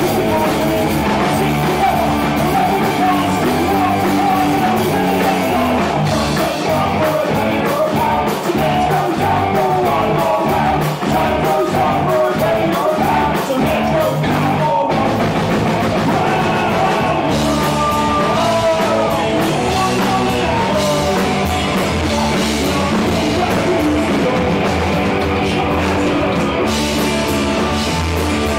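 Rock band playing a song live, with guitar, drums and singing.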